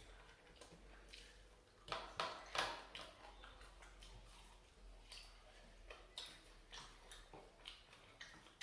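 Quiet eating sounds at a plate: a few soft clicks and clinks of food and dishes, loudest about two to three seconds in.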